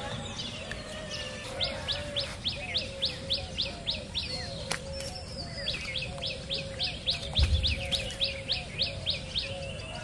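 A bird singing runs of sharp, high, down-slurred notes, about four a second, in two bursts of a few seconds each, over a lower call repeating about twice a second. A low thump about seven and a half seconds in.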